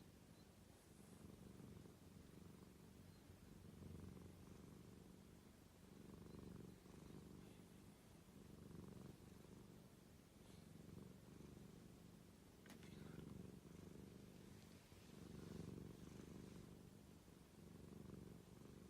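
Domestic cat purring softly, a low rumble that swells and fades with each breath about every second and a half.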